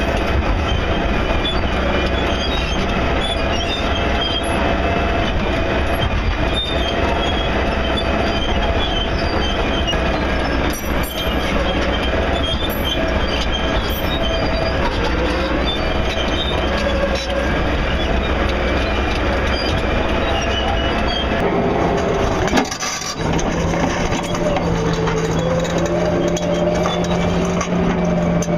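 Caterpillar 336E excavator's diesel engine and hydraulics working while digging, a steady rumble with a wavering whine over it. Near the end the sound dips briefly, then carries on with a steadier low hum.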